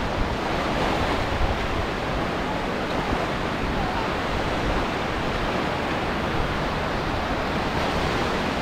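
Steady wash of sea waves breaking on a beach, mixed with wind.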